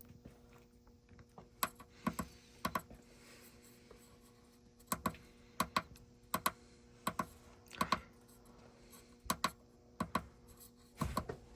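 Buttons pressed one at a time on a fire alarm control panel's keypad: scattered sharp clicks, some in quick pairs, over a faint steady hum.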